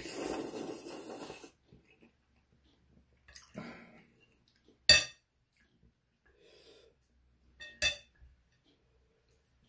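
A person slurping noodles for about a second and a half, then utensils clinking against a glass bowl while stirring the noodles. Two sharp clinks, about five and eight seconds in, are the loudest sounds.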